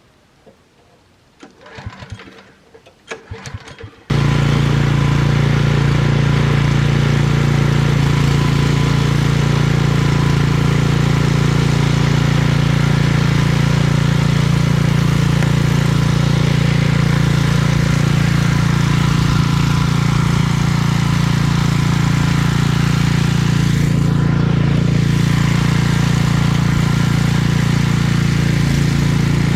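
A few clicks and knocks, then an engine comes in abruptly about four seconds in and runs loud and steady at an even pitch.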